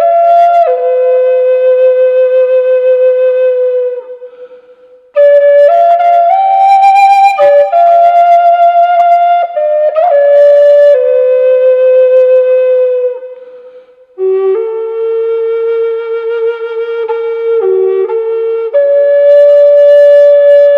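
G4 Native American style flute playing a slow, unaccompanied melody of held notes, pausing twice between phrases.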